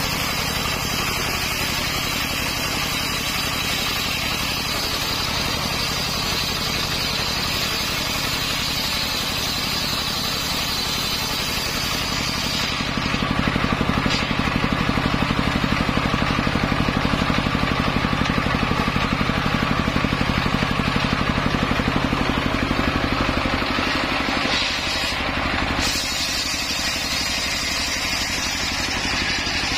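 Engine of a modified car driving a home-built circular saw rig, running steadily with an even pulse. About a third of the way in it grows louder for roughly thirteen seconds, then eases back to its earlier level.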